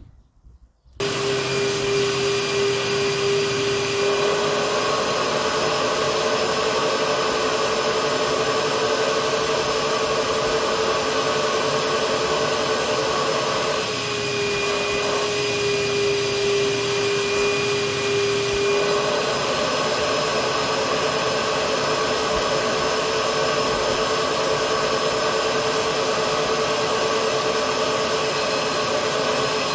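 Carpet-cleaning extraction machine's vacuum motor switching on about a second in and running steadily with a loud whine, drawn through a hose and hand upholstery tool. The whine drops slightly in pitch twice: for a few seconds after it starts and for about five seconds midway.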